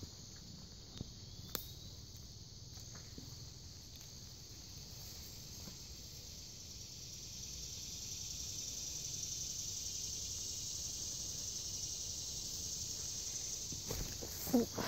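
A steady high-pitched chorus of insects, growing louder partway through, with a few faint footstep clicks on the forest floor early on and a short bump near the end.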